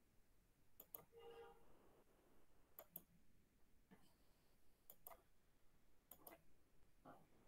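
Near silence with faint computer mouse clicks, mostly in quick pairs, four times over the few seconds.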